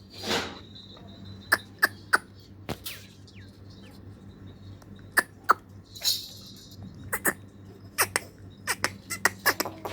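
Goats in a pen making irregular short, sharp clicks and knocks, with two brief hissing coughs or snorts, one near the start and one about six seconds in, over a steady low hum.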